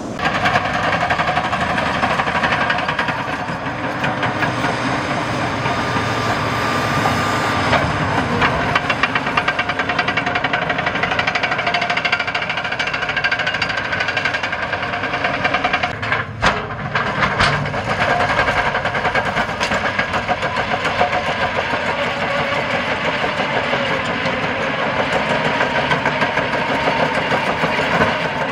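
A heavy machine's diesel engine running steadily with an even throb, with a couple of sharp knocks about halfway through.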